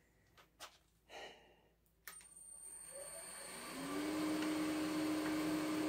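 A few light knocks, then a click about two seconds in as the wood lathe is switched on; its motor spins up with a rising whine and settles to a steady run, turning a cloth buffing wheel.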